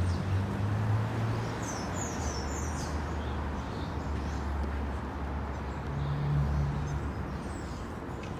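Steady outdoor background rumble, with a few short, high bird chirps about two seconds in.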